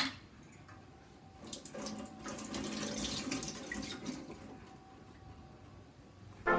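A sharp click at the very start, then freshly boiled water poured from a stainless-steel kettle splashing into a kitchen sink. The pour starts about a second and a half in, lasts about three seconds, is loudest midway, and then tails off.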